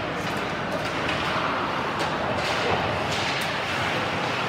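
Ice hockey rink sound: skates scraping on the ice over the steady hum of the arena, with a few sharp clacks of sticks on the puck.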